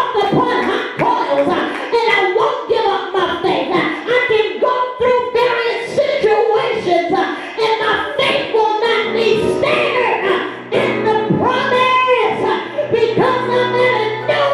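A woman singing into a microphone, her voice rising and falling and holding long notes. A low sustained chord joins in about nine seconds in.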